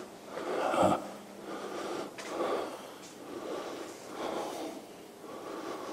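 A man breathing audibly as he walks, a soft breath about once a second, over a faint steady hum.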